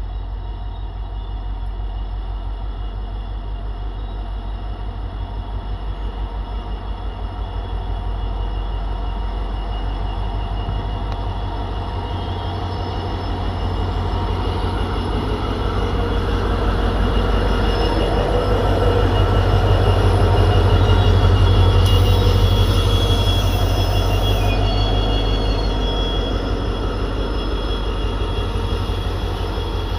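EMD two-stroke diesel engine of a WDG4D locomotive humming with a deep, steady, fast-pulsing throb, growing louder to a peak about two-thirds through and then easing slightly. Thin high-pitched tones sound over the hum.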